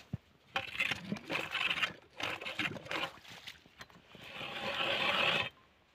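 Ice auger cutting into lake ice: uneven scraping strokes, then a longer, steadier grind of about a second and a half that stops abruptly near the end.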